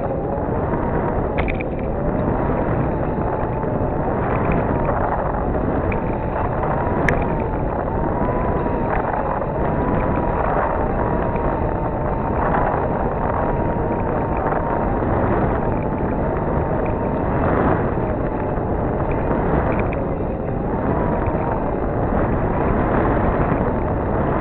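Wind buffeting the microphone of a masthead camera on a moving sailboat, a steady rushing noise, with a faint wavering whine drifting slowly up and down underneath.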